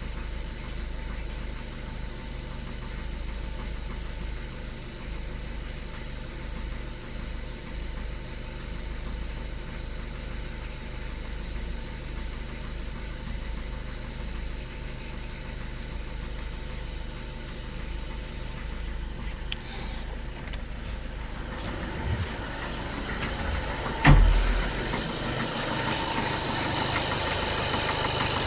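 Skoda Octavia 1.6 TDI diesel engine idling cold, with the knock it makes only until warmed up. Late on it gets louder and fuller, and there is a single loud thump.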